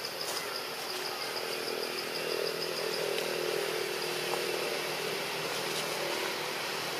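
A motor engine running steadily, growing louder about two seconds in, under a fast high-pitched pulsing trill that fades out around halfway.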